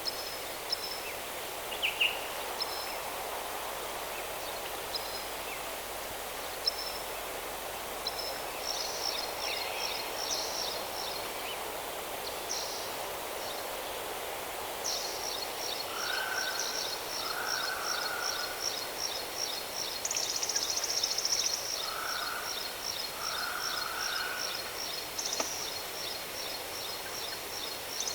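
Waterfall rushing steadily, with birds chirping over it. About halfway through a fast, high trill starts and runs on, with a few short lower calls over it.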